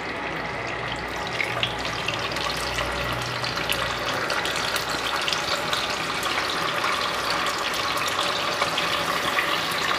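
Small whole fish frying in hot mustard oil: a steady sizzle full of small crackles and spits, growing gradually louder as more fish go into the pan.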